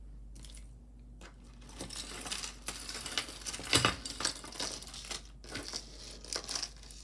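Hands setting down and spreading out a silver-tone metal chain necklace of star and oval links on a tabletop: a run of small metal clinks, rattles and rustles, loudest about four seconds in.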